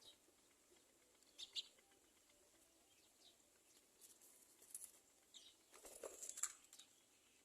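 Faint short bird chirps, a few spread apart, then a brief burst of rustling and scratching about six seconds in.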